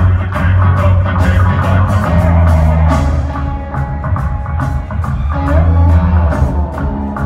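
Live rock band playing: a prominent, shifting bass line over a steady drum-kit beat, with electric guitar.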